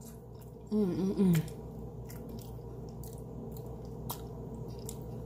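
A person eating seafood with their fingers: sucking and licking seasoning off the fingers and chewing, with faint wet lip smacks and clicks. A brief hum from the eater about a second in is the loudest part.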